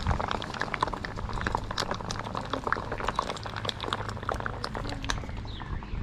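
Hot soapy water with a paint-stripper-coated hinge in it, fizzing and crackling with many small popping bubbles.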